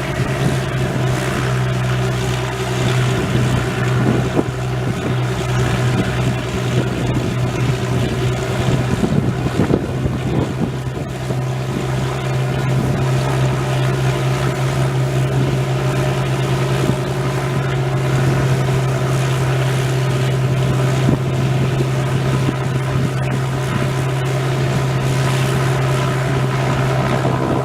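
Propeller aircraft engines running steadily: a loud, constant drone with a strong low hum that holds one pitch throughout.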